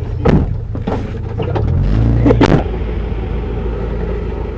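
Small petrol engine of an alkon water pump running steadily, its pitch rising about two seconds in and then holding, with a couple of short thuds.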